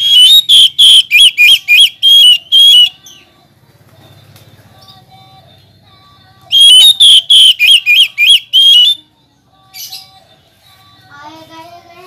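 Oriental magpie-robin singing: two loud bursts, each about two to three seconds long, of rapid repeated whistled notes, the second starting about six and a half seconds in. Softer, fainter chirps follow near the end.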